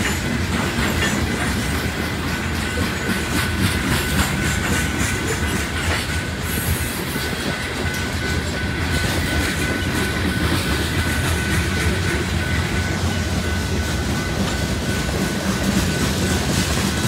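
Freight cars rolling past on the rails, wheels clicking over the rail joints in a steady run, with a thin, high, steady squeal from the wheels.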